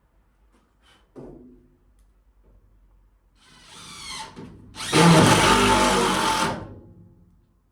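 Power drill working into a timber batten in two runs: a shorter one with a rising whine about three and a half seconds in, then a longer, louder run about five seconds in.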